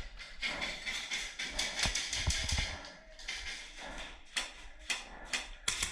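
Scattered sharp clicks and knocks over a noisy background, with a few low thumps about two seconds in.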